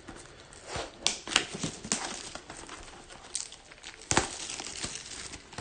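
Wrapping on a box of trading cards being torn open: crinkling and tearing with irregular sharp crackles.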